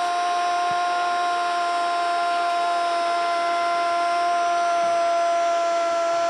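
A Spanish-language football commentator's long, drawn-out cry of "¡gol!", one held high note whose pitch sags very slightly.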